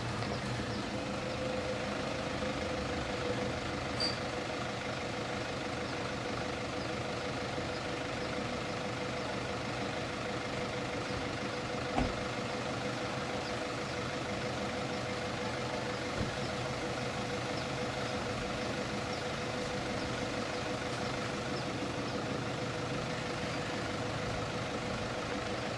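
Toyota Hilux pickup's engine idling steadily, with a single thud about twelve seconds in.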